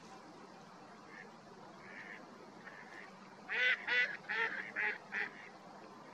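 Common shelducks calling: a few faint calls, then, from a little past halfway, a run of five loud calls about two and a half a second.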